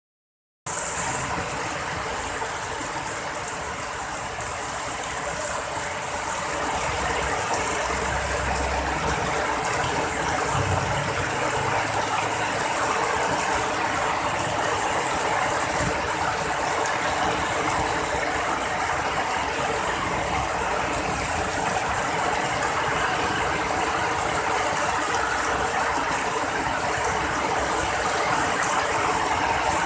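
Heavy rain falling steadily onto a flooded street, a dense, even patter with no break.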